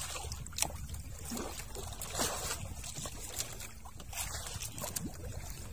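Water trickling and dripping off a wet fishing net as it is hauled hand over hand over the side of a small boat, with a few sharp clicks and knocks against the hull.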